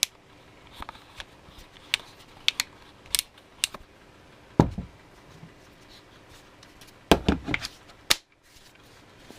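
Irregular sharp clicks and a few duller knocks from a Parkside 12 V cordless planer being handled and its controls worked, about a dozen in all, with a cluster near the end.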